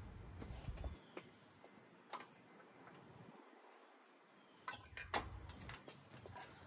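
Steady high-pitched chirring of crickets, with a few faint clicks and one sharper click a little after five seconds.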